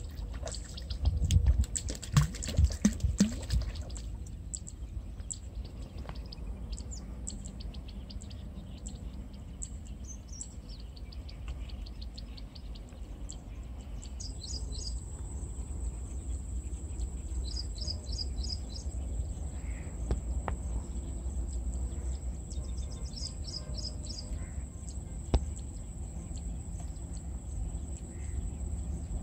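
A hooked fish splashing and thrashing at the water's surface and then being landed, a rapid burst of splashes and knocks lasting a few seconds. Later come several short series of bird chirps, and one sharp knock near the end, over a steady low rumble.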